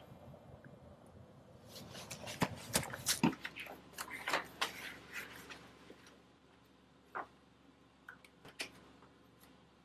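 Papers, folders and plastic binders being handled and shuffled at a desk file drawer: a busy run of rustles and clicks through the first half, then a few separate clicks near the end.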